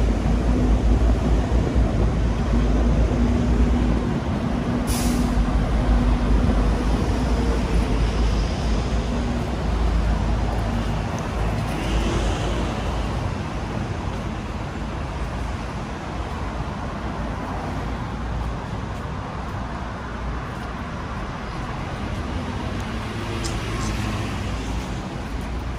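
City street traffic with heavy vehicles such as buses and trucks running past, a steady low rumble throughout. A brief sharp hiss comes about five seconds in.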